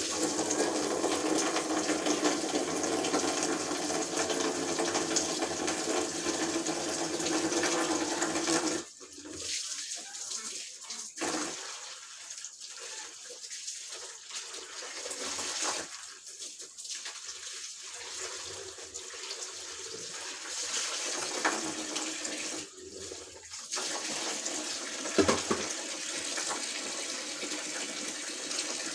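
Water running from a tap into a sink, steady for the first nine seconds or so, then coming in broken, stop-start spurts.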